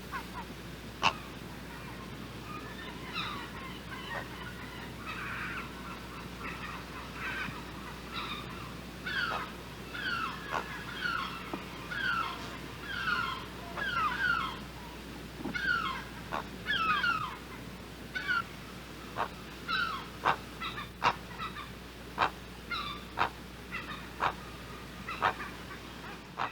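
Great blue heron calling: a long series of short, harsh calls, each falling in pitch, repeated about once or twice a second, with sharp clicks now and then.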